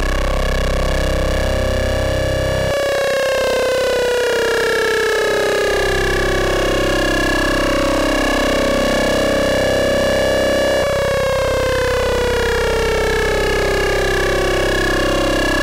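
Modular synthesiser oscillators (Rossum Trident among them) ring-modulated into a dense sustained tone of many steady partials. A set of partials glides slowly downward in pitch, jumping back up and starting the fall again about 3 seconds and 11 seconds in.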